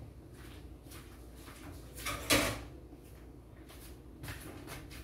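A brief sliding scrape a little over two seconds in, the loudest sound here, with a few faint knocks and rustles of kitchen things being handled around it.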